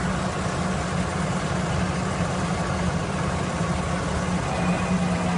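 The 12-cylinder V engine of a large wheel-type earth-digging machine running steadily with a low hum, its drive just engaged to the digging wheel.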